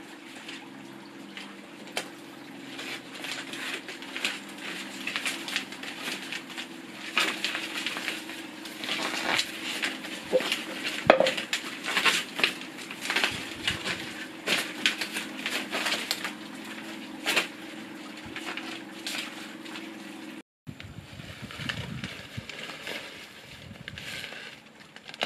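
Paper pinwheels crinkling and rustling as they are folded and handled, with many quick sharp crackles, over a steady low hum. After a break near the end, softer rustling.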